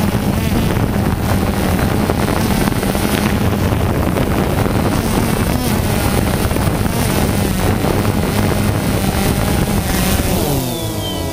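DJI Phantom 2 quadcopter's electric motors and propellers running loud and close, heard through its onboard GoPro. Near the end the tones fall in pitch as the motors wind down on touchdown.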